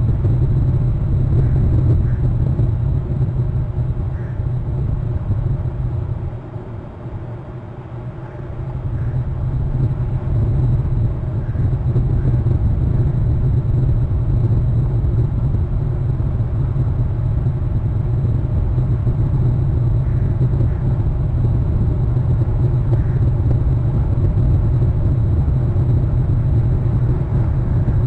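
Low, steady rumble of wind buffeting an outdoor microphone, easing briefly about a quarter of the way in and then picking back up.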